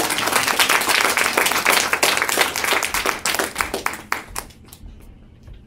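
Applause from a small audience of children clapping. It is dense at first, then thins to a few scattered claps and dies away about four seconds in.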